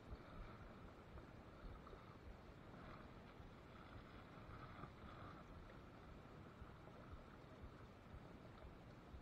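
Near silence: a faint, steady rush of flowing river water, with a low fluctuating rumble on the microphone.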